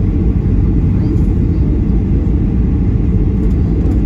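Cabin noise of a Boeing 737-800 on approach, heard inside the cabin: its CFM56-7B engines and the airflow past the fuselage make a steady low rumble.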